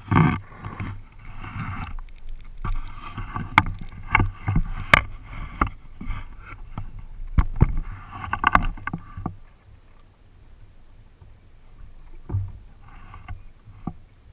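Water sloshing and splashing against the plastic hull and outrigger float of a Hobie sailing kayak, with many sharp knocks and clicks through the boat. This is loudest for the first nine seconds, then quieter, with a short burst of splashing near the end.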